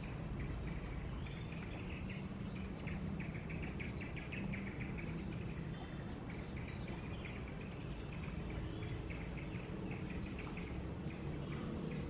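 Outdoor ambience: a steady low rumble with rapid, high-pitched chirping recurring throughout.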